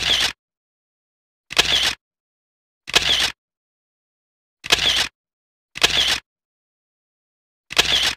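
Camera shutter sound effect, clicking six times at uneven intervals of one to two seconds, with dead silence between the clicks.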